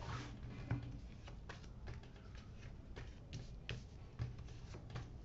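Tarot cards being spread and dealt onto a cloth-covered table: faint, scattered ticks and soft slaps of cards.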